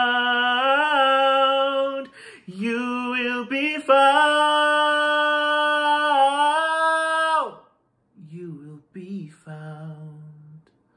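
A male solo voice singing held notes at the end of a song: a long sustained note, a short phrase, then another long note that stops about seven and a half seconds in. A few softer, lower vocal sounds follow near the end.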